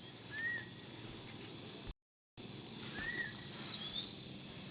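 Forest ambience: a steady high-pitched insect trill, with a bird's short whistled note repeating about every two and a half seconds. The sound drops out completely for about half a second around two seconds in.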